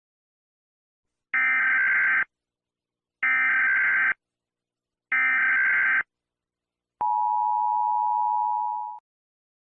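Emergency Alert System alarm: three screeching data bursts of about a second each, a second apart (the SAME header), then the steady two-tone attention signal held for about two seconds and fading out.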